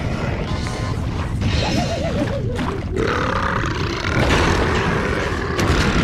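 A cartoon burp, heavily distorted and layered with effects: a loud, low rumbling burp with warbling pitch-shifted copies of it in the middle.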